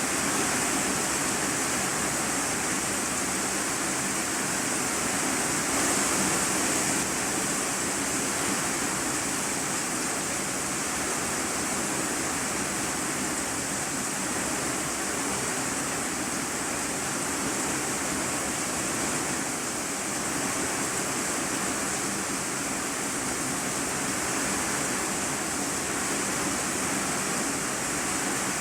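Heavy rain drumming on an iron-sheet roof, heard from the room beneath as a steady, dense hiss.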